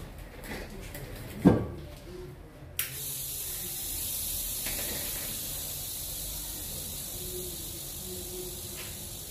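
A heavy knock, then about three seconds in a click and a steady high hiss of air that starts suddenly and keeps going.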